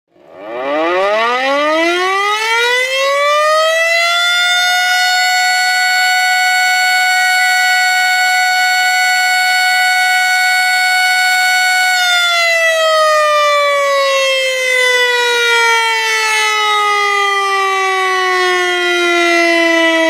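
Civil defense siren sounding one loud wail. It winds up in pitch over about four seconds, holds a steady tone, then about twelve seconds in slowly winds down and falls in pitch.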